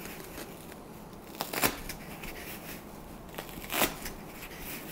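Hand snips cutting through thick melamine acoustic foam: a few short crunchy snips, the sharpest about a second and a half in and again near four seconds in.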